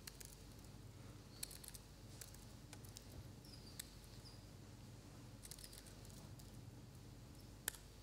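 Faint, scattered laptop keyboard clicks over a low room hum, with one sharper key press near the end.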